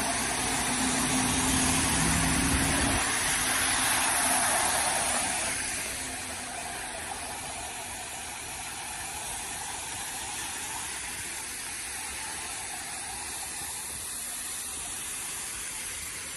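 Vehicles driving through deep floodwater on a road. An engine hum is heard for the first few seconds, along with the hiss of tyres spraying water, loudest about four seconds in. After that it settles into a steadier, quieter wash of water.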